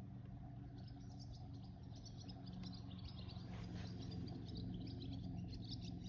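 Faint outdoor chirping of small wildlife: many short, high chirps throughout over a low, steady hum.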